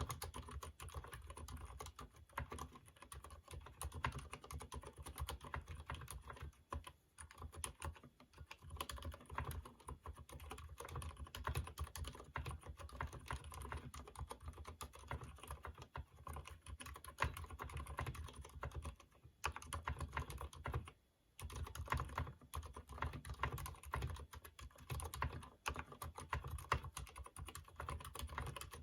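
Fast, continuous typing on a Durgod mechanical keyboard with Cherry MX Silent Red switches that have not been lubed yet, a dense stream of keystrokes. The typing breaks off briefly about seven seconds in and again around twenty-one seconds in.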